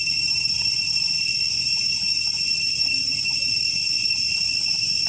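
Insects droning in a loud, unbroken high-pitched chorus that holds a steady level throughout.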